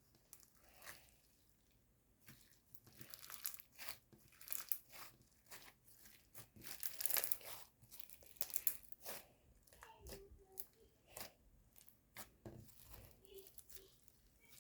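White crunchy slime crackling and crinkling as it is handled, in a run of short, irregular bursts that are loudest about seven seconds in.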